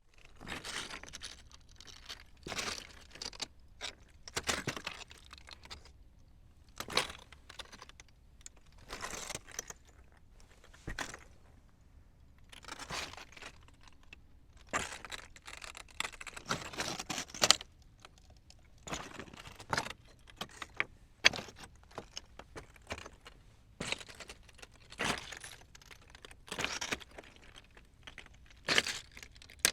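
Footsteps on loose rocks: stones clatter and crunch underfoot with each step. The steps come at an uneven pace, roughly one every one to two seconds.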